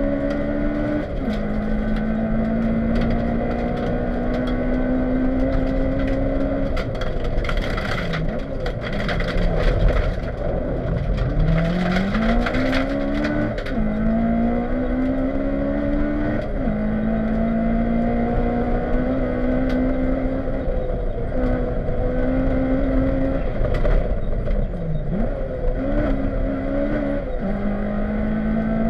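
Honda Civic rally car's engine heard from inside the cabin at stage pace: the revs climb, drop sharply at each upshift and sag under braking before pulling again. Two bursts of scraping hiss come a few seconds apart, about a third of the way in.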